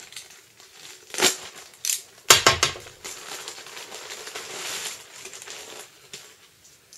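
Packaging crinkling and rustling as a T-shirt is unwrapped by hand: a few sharp crackles, then a few seconds of steady rustling that dies away near the end.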